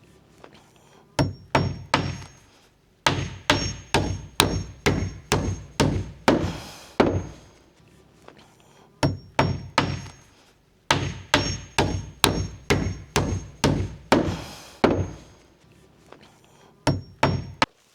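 Hammer driving nails through a plywood sheet into wooden wall framing: runs of sharp blows, about two a second, with short pauses between the runs.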